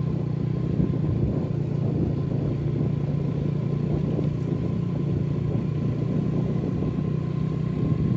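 Motorcycle engine running steadily at cruising speed, heard from on the moving bike, a low even hum that does not change.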